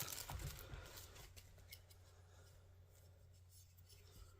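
Faint rustling and light clicks of a plastic charger plug and its packaging being handled in the first second. Then near silence with a low steady hum.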